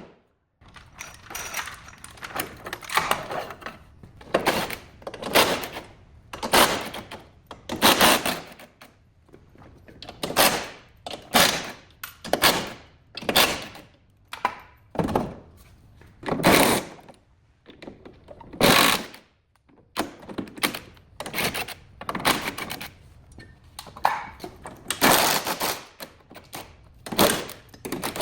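Shop tool noise during car body repair: an irregular series of short, harsh bursts and knocks, about one or two a second with brief gaps between them.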